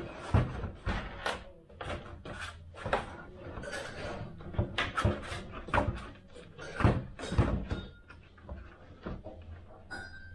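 Irregular clicks, taps and rustling as small model-aircraft parts and tape are handled and worked by hand on a bench.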